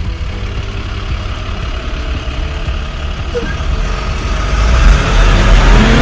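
Truck engine running with a steady, dense rumble, growing louder about five seconds in as the truck drives off.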